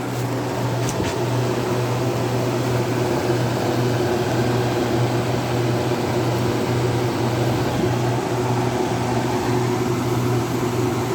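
Vintage KitchenAid KDH20 dehumidifier, built by Hobart, running steadily: a low, even compressor hum under the whir of its fan.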